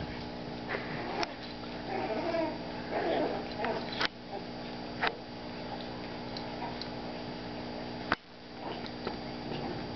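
A blue heeler and a teacup chihuahua puppy play-fighting, with short wavering dog vocal sounds about two to three seconds in and a few sharp clicks scattered through, the sharpest about eight seconds in.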